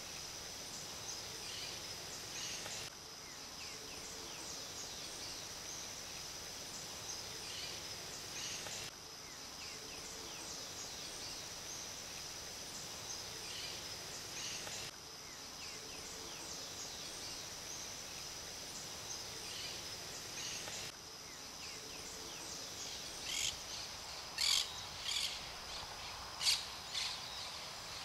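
Dawn chorus outdoors: a steady high insect trill under scattered faint bird chirps. Near the end come several louder, sharp bird calls.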